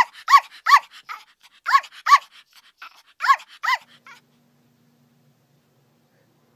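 A corgi puppy barks in short, high yaps, about seven of them in pairs, then stops about four seconds in.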